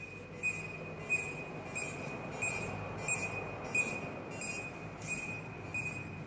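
Electronic rodent repeller sounding a string of evenly spaced, shrill high-pitched pulses, about three every two seconds, over a steady low hum.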